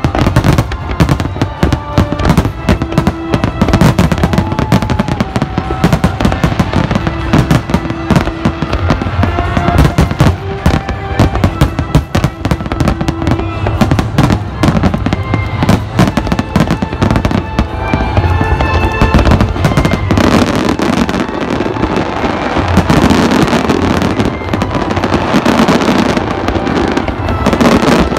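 Large fireworks display: shells bursting in rapid, overlapping bangs without a break, with music playing over them. The bursts grow thicker and denser from about two-thirds of the way in.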